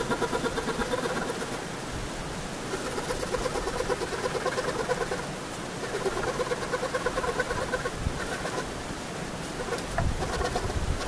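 A bird calling in repeated rapid trilled phrases, four bouts of about two seconds each, over a steady hiss. A low thud near the end.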